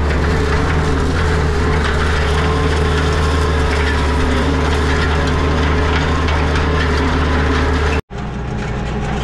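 Kioti RX7320 tractor's diesel engine running steadily under load as it pulls a disc chisel plow through the soil, heard from inside the cab. A momentary break about eight seconds in, after which the drone carries on slightly quieter.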